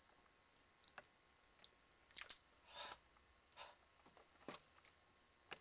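Near silence: room tone with faint scattered clicks and a few brief soft noises.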